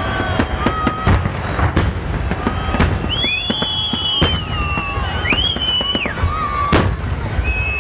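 Fireworks salute going off: many sharp bangs over a constant low rumble, with high drawn-out whistling tones through the middle.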